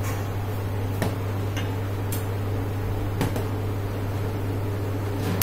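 A few sharp, irregular clicks of a wire whisk and stainless steel bowls knocking together as ginger garlic paste is scraped into flour and whisked, over a steady low hum.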